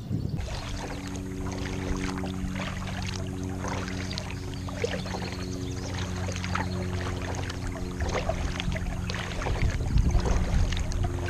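Kayak paddling: water splashing and trickling off the paddle blades in irregular short splashes. Under it runs a steady low hum of several sustained tones. The splashing grows louder, with low thumps, near the end.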